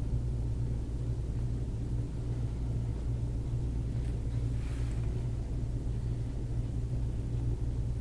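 Steady low hum with no speech, and a faint short hiss about four and a half seconds in.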